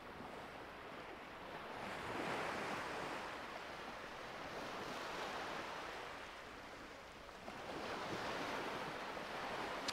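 Small waves washing onto a sandy beach from a calm sea, a faint steady wash that swells about two seconds in and again near the end.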